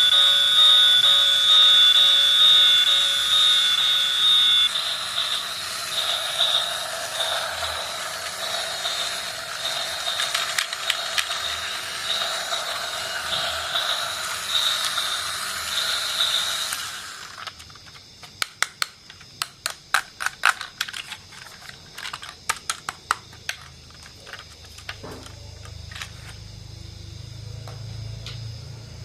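Model trains running on a layout: a steady mechanical running noise, with high steady tones over the first few seconds. About 17 seconds in the noise drops away, leaving irregular sharp clicks, and a low hum comes in near the end.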